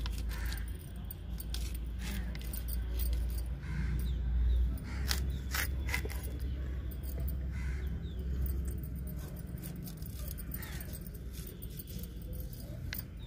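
A steel sickle blade (daanti) scraping the seeds and soft pulp out of ash gourd slices, making a run of irregular scrapes and clicks. A steady low rumble sits underneath.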